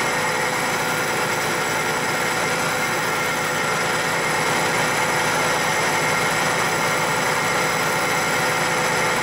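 Mercedes-Benz Unimog 406's six-cylinder diesel engine idling steadily.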